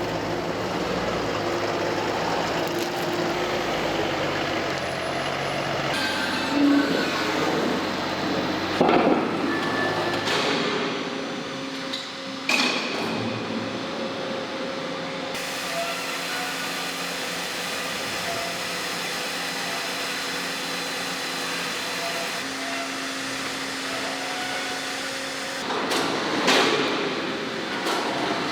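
Forging-plant machinery running steadily, with a few loud metal knocks and clanks. The machine noise changes abruptly several times.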